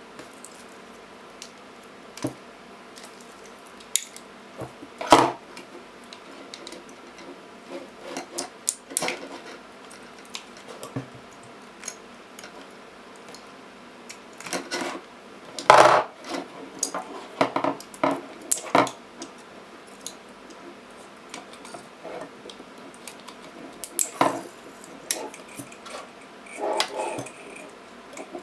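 Laptop battery pack being dismantled by hand: irregular clicks, scrapes and clatter of plastic casing and metal parts, with sharper snaps or knocks about five seconds in, about sixteen seconds in and near twenty-four seconds.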